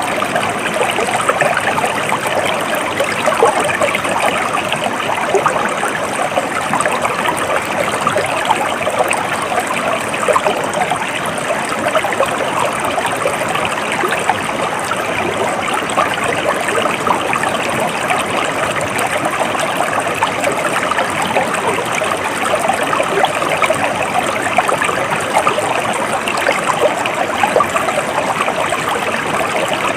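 Stream water flowing and babbling steadily, a dense even trickling and splashing with no pauses.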